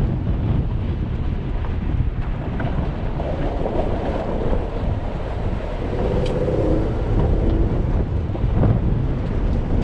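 Jeep driving on a rough dirt track: a steady low rumble of the engine and tyres on sand and gravel, with wind buffeting the microphone and a few brief knocks from bumps.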